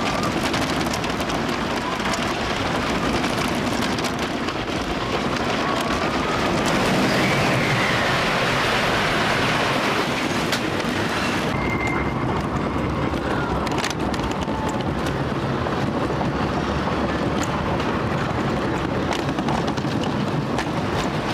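Wooden roller coaster train running along its track: a steady rumble and clatter of the wheels with brief high wheel squeals. About halfway through, the higher rushing hiss drops away.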